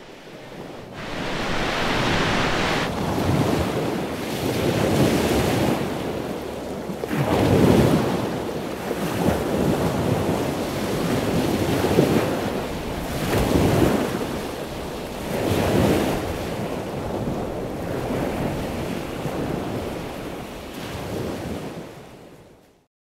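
Sea waves breaking and washing up a shore, rising and falling in repeated swells every couple of seconds, with wind on the microphone. It fades out near the end.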